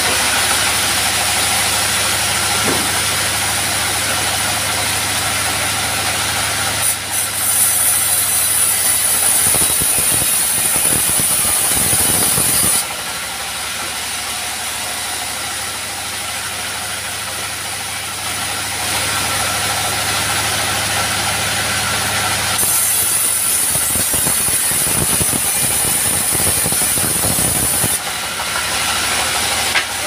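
Portable bandsaw sawmill driven by a stationary diesel engine running steadily. The blade cuts through a log twice, each pass adding a loud high-pitched saw whine and a rough rumble: from about 7 to 13 seconds in, and again from about 23 to 28 seconds in.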